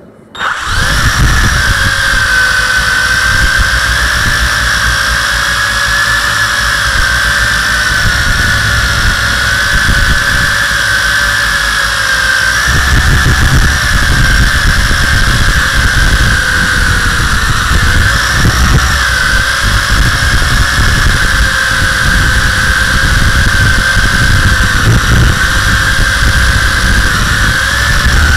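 WLToys V262 quadcopter's motors and propellers whining, heard from the camera on the drone, starting abruptly at lift-off and wavering slightly in pitch as the throttle changes. Uneven low rumbling runs under the whine, heavier from about halfway.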